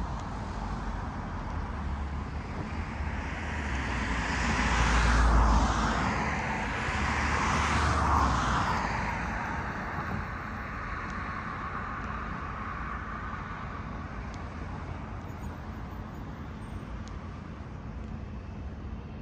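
Road traffic: two vehicles pass close by, louder about five and eight seconds in, over a steady hum of traffic.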